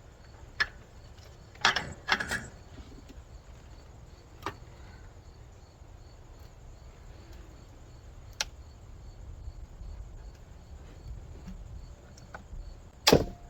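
A handful of sharp clicks and knocks from hoses, connectors and parts being handled during intake manifold removal in a car's engine bay, spaced seconds apart, the loudest near the end. Under them a faint, evenly repeating high chirp.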